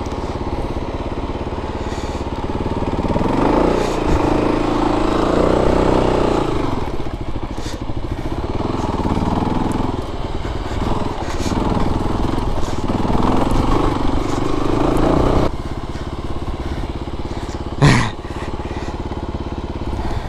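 Kawasaki KLR250 single-cylinder four-stroke engine, ridden off-road, revving up and down, then running lower and steadier for the last few seconds. A sharp knock comes near the end.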